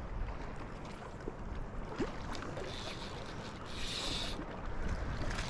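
Wind buffeting the microphone over choppy lake water, with a steady low rumble and a few brief hissing splashes of small waves.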